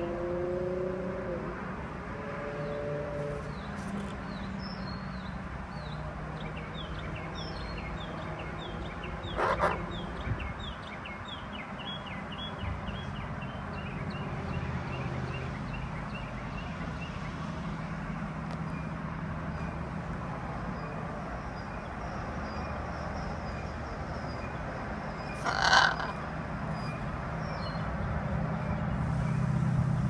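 Wild songbirds singing: one repeats a long run of short, evenly spaced chirps through the first half, over a low steady rumble of distant traffic. Two brief loud bursts break in, about ten seconds in and again near the end.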